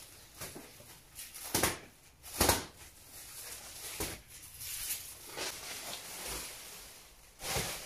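Black plastic pallet wrap being cut and pulled away, heard as a series of short noisy bursts, the loudest about two and a half seconds in.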